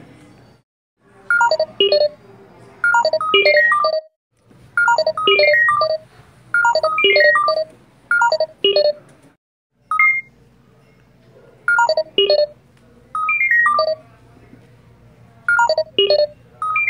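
A tune of short, bright electronic notes played in quick falling runs, like a ringtone melody, with a few brief pauses between phrases. A steady low hum sits underneath.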